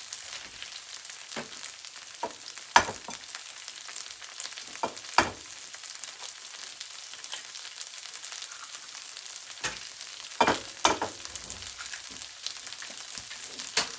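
Hash browns frying in hot oil in a pan, a steady sizzle. Several sharp knocks of kitchen utensils cut through it, two close together about ten and a half seconds in.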